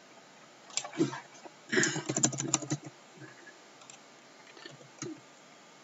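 Computer keyboard keystrokes: a couple of taps about a second in, then a quick run of key presses, a number typed and Enter pressed, followed by a few faint clicks.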